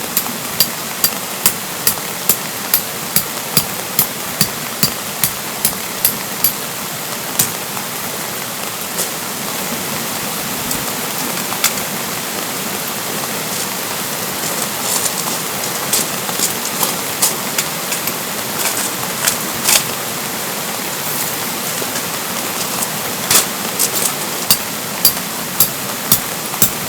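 Steady rush of rain and a valley stream. Over it come sharp taps at about two to three a second for the first few seconds, only now and then through the middle, and regular again near the end.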